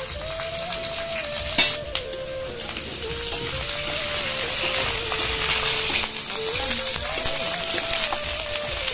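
Cubed potatoes sizzling as they shallow-fry in oil in a kadhai, stirred with a metal slotted spatula, with one sharp clink of the spatula against the pan about one and a half seconds in.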